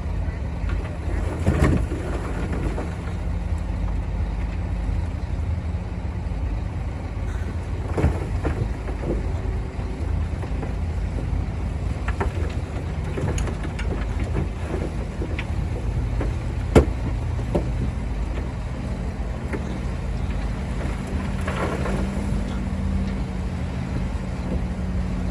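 Heavy diesel earthmoving machinery, a Komatsu bulldozer at work, running steadily with a low engine hum. It is broken by a few sharp knocks, the loudest about 17 seconds in.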